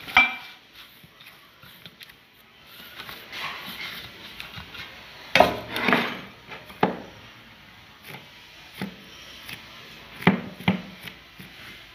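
Bowls and dough being handled on a kitchen worktop: a handful of sharp knocks as a steel bowl and a glass bowl are set down and moved, the loudest about five and a half seconds in, with softer rubbing and patting as the kneaded dough is pressed into the glass bowl.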